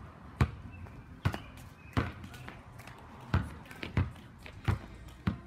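A rubber ball bouncing on a concrete driveway during a game of basketball: about seven sharp thumps at uneven intervals, the first the loudest.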